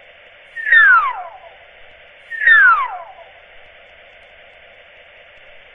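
Two falling electronic whistles, each sliding down in pitch for under a second, one under a second in and one about two and a half seconds in, over a thin radio-like hiss.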